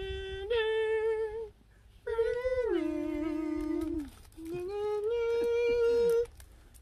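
A man humming a slow tune in long held notes: three phrases with short pauses between them, the middle one stepping down in pitch partway through.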